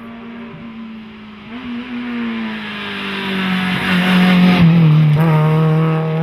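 Renault Clio Ragnotti rally car's four-cylinder engine under power, getting louder as the car climbs toward and past the microphone. Its pitch drops as the car goes by, about four and a half seconds in, and it keeps pulling hard as the car drives away round the bend.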